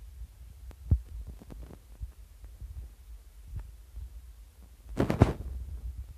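Footsteps on a concrete stairway strewn with debris: low thuds over a handling rumble, with scattered small knocks and a short cluster of louder, sharp knocks about five seconds in.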